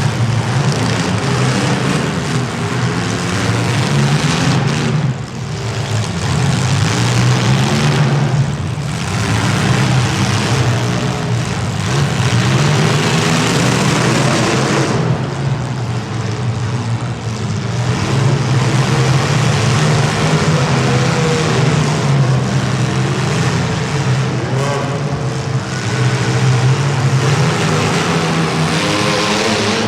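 Compact demolition derby cars' engines running hard and revving, several pitches rising and falling over a steady low drone.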